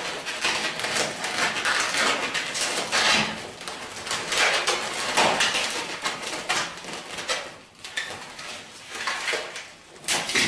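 Latex 260 modelling balloons rubbing and squeaking against each other and the hands as they are bent and twisted, in quick irregular squeaks.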